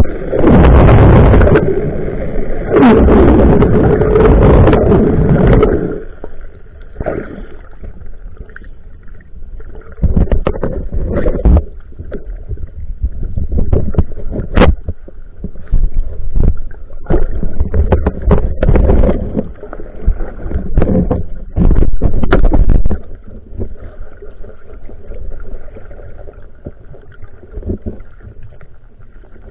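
Muffled underwater water noise from a camera held below the surface: loud rushing and bubbling for the first several seconds, then scattered knocks and clicks with further bouts of rushing.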